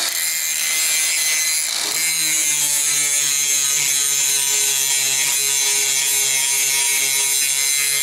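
Angle grinder running steadily while grinding down a piece of steel, a motor whine under a harsh grinding hiss.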